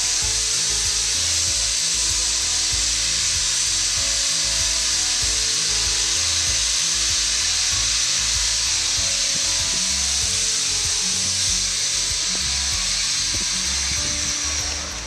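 Steam locomotive letting off steam: a loud, steady hiss that cuts off at the very end, with background music underneath.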